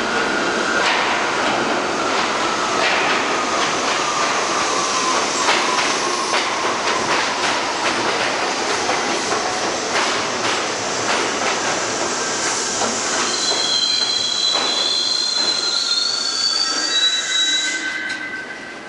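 R62A subway train entering the station and braking to a stop: a slowly falling whine over repeated clicks of wheels over rail joints, then a high squeal in the last few seconds as it comes to a halt.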